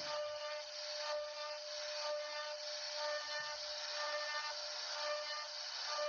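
CNC router cutting wood: a steady spindle whine over a rasping cutting noise, under background music with notes that repeat about once a second.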